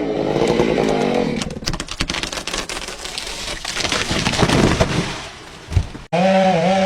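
Chainsaw engine running at cutting speed, its pitch wavering. In the middle comes a stretch of dense crackling and snapping wood. The sound breaks off abruptly about six seconds in, and a chainsaw is running again.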